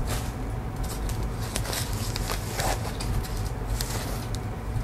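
Plastic and foam packaging wrap rustling and crinkling in irregular bursts as a camera body is unwrapped from it, over a steady low hum.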